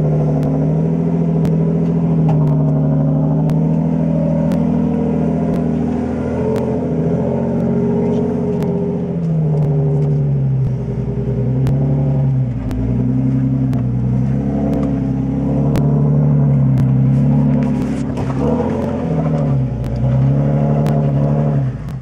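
The Toyota FJ Cruiser's supercharged 4.0-litre V6, heard from inside the cab, working under load up a steep rock climb. It holds steady revs for the first several seconds, then the revs dip and rise again and again as the throttle is fed on and off.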